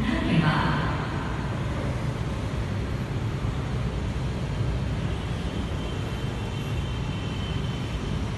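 Steady low rumble of metro station concourse ambience, with a short indistinct voice in the first second.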